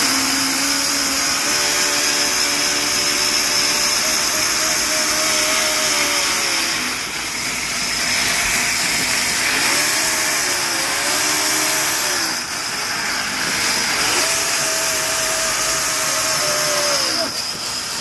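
Sawmill saw cutting through a hardwood log (rain tree): a dense, steady cutting hiss with a motor whine that sags in pitch and recovers several times as the blade takes load.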